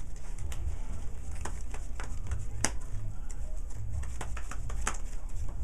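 Trading cards being handled and shuffled on a table after a mulligan: irregular light clicks and taps, over a steady low hum.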